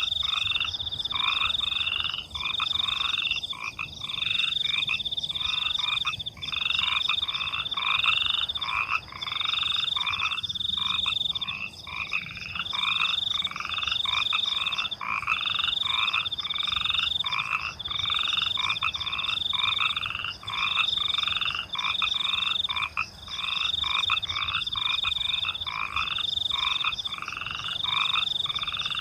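Frogs croaking in a dense chorus of quick repeated calls, with crickets trilling in a high tone that switches on and off about once a second.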